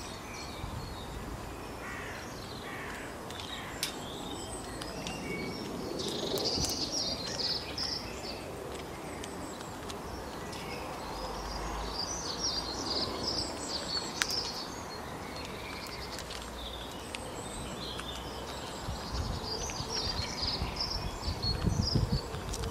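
Birds chirping in short bursts over steady outdoor background noise, with a few sharp clicks and low rumbling near the end.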